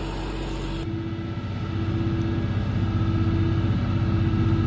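Deutz 4055 tractor's engine running steadily under load, driving a feed mixer wagon through its PTO while the mixer churns forage. About a second in the sound changes abruptly, and the engine and the mixer's churning become a little louder.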